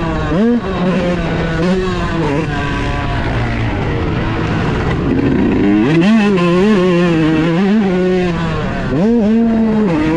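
Yamaha YZ125's 125cc single-cylinder two-stroke engine being ridden hard, its pitch rising and falling on and off the throttle. It revs up sharply near the start, drops to a lower, quieter run for a couple of seconds, then climbs again about six seconds in, with another quick rev and drop near the end.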